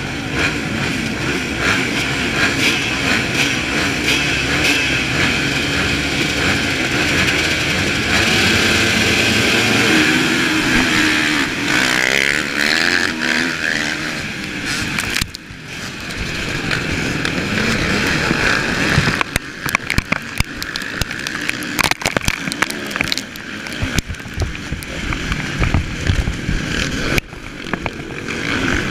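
Kawasaki motocross bike's engine revving hard and shifting up and down through the gears at race pace, heard from the bike itself, with other dirt bikes close by. In the second half the sound turns choppy, broken by sudden knocks and brief dropouts.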